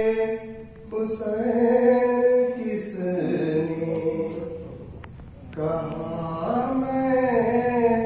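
A nauha, a Shia lament for Imam Hussain, chanted by one unaccompanied man's voice in long held notes. A phrase fades out about halfway through, and the next one begins about five and a half seconds in.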